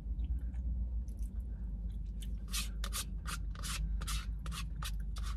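Clear plastic spoon scraping the inside of a paper soup cup: a quickening run of about a dozen short scrapes, starting about two seconds in.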